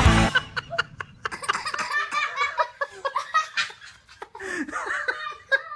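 Background music cuts off just after the start, then children laugh and giggle in short bursts.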